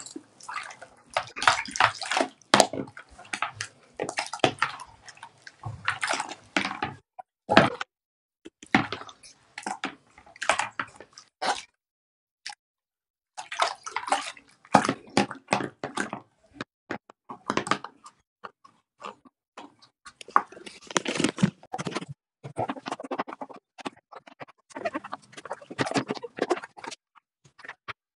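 Hand splashing a silicone Simple Dimple fidget toy about in a sink of soapy water: irregular splashes and sloshes, with a short lull about halfway.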